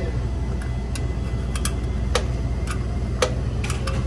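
Sharp metallic clicks and ticks at irregular intervals as the wire terminals and start-relay box on a refrigeration compressor are handled. Under them runs the steady low hum of the running condensing unit.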